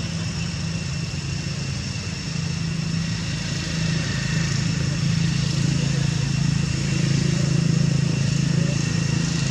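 A steady low engine hum that grows a little louder about four seconds in, with thin steady high-pitched tones above it.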